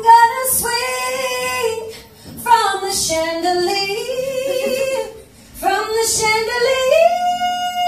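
A woman singing solo into a microphone in long, sustained notes with vibrato, in three phrases with brief breaths about two seconds in and again about five seconds in.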